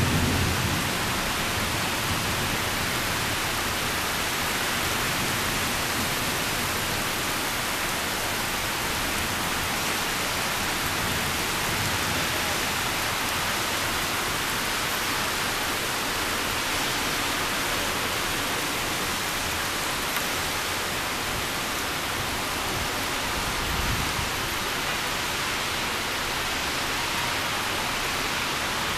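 Heavy thunderstorm rain pouring down, a dense steady hiss. The tail of a low thunder rumble fades out in the first second, and a brief low rumble swells about 24 seconds in.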